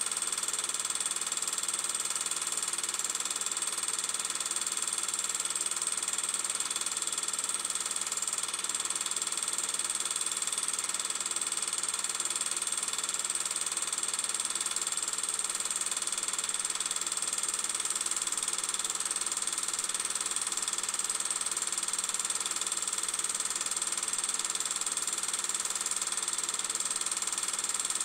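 Steady, unchanging hum and hiss with several constant tones and no separate events.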